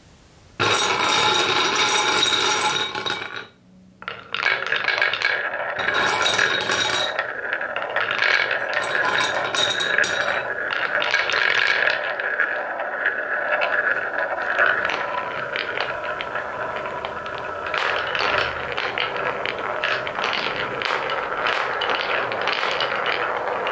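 Wooden balls rolling and clattering in a carved wooden marble-run bowl and along wooden track: a steady rolling rumble with many small clicks as the balls knock against each other and the wood. It drops out briefly a few seconds in, then continues.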